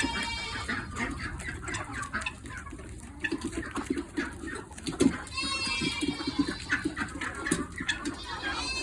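A flock of chickens and turkeys calling while they feed: a few high-pitched calls about half a second long stand out, at the start, about five and a half seconds in and again at the end, over a busy scatter of short knocks.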